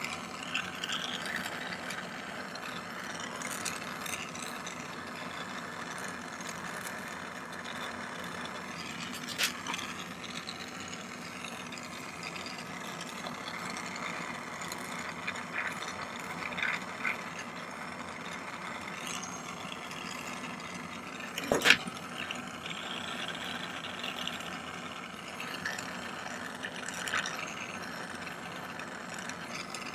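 Jeweller's gas soldering torch flame hissing steadily as it heats sterling silver wire to sweat hard solder onto it, with a few sharp clicks of metal tools, the loudest about two-thirds of the way through.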